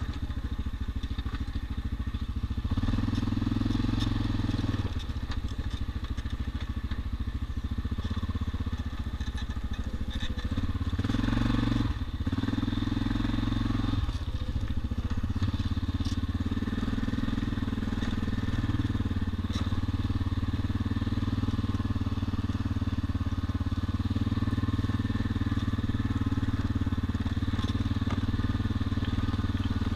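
ATV engine running as the quad rides over a rocky gravel creek bed. The engine note shifts several times with the throttle, and the tyres crunch over loose stones.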